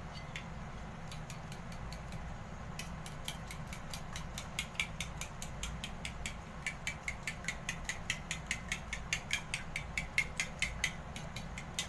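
Metal spoon clicking rapidly against a porcelain bowl while beating eggs with chicken stock, about four or five clicks a second. The clicks start sparse and faint, settle into a steady rhythm about three seconds in, and grow louder past the halfway point.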